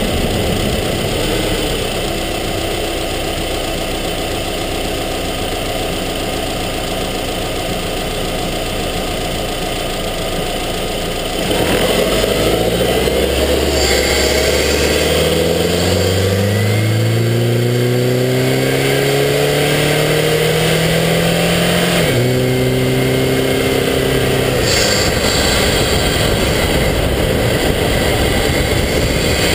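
Subaru Forester XT's turbocharged flat-four engine heard from inside the engine compartment. It runs steadily for about eleven seconds, then gets louder and climbs in pitch for about ten seconds, drops suddenly in pitch, and runs steadily again.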